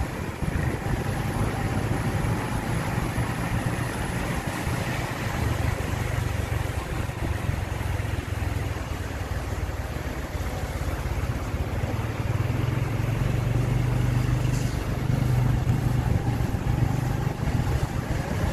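Motor vehicle running steadily, its engine drone mixed with road noise, with the engine growing somewhat louder about two-thirds of the way through.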